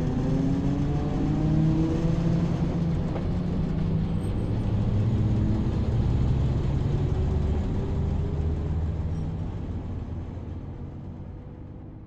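A car engine accelerating: its pitch climbs and drops back several times, as through gear changes, then settles lower and fades away near the end.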